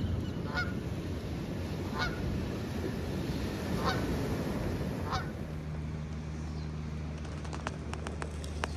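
Canada geese honking: four separate honks about a second to a second and a half apart over a low rushing background. From about five and a half seconds in, a steady low hum takes over, with a few sharp clicks near the end.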